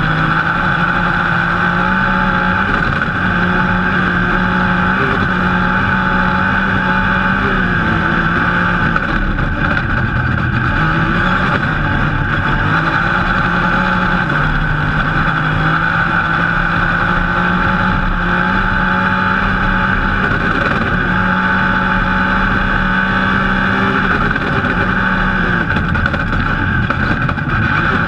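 Rally car engine running hard at racing speed, heard from inside the cockpit. The engine note climbs and drops back again and again as the car accelerates and shifts, over a steady rush of road noise from the dirt track.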